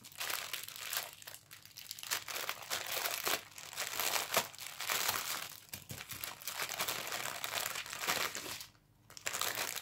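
Clear plastic packaging bag crinkling and crackling as hands handle and open it, with a brief pause near the end.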